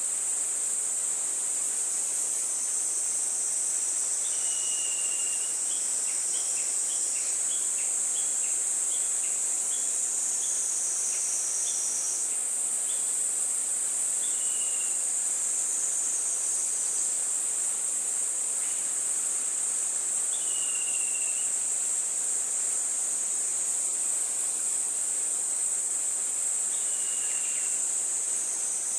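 Steady high-pitched drone of insects, with a few short bird calls over it: a run of quick repeated notes after about six seconds and several single slurred notes.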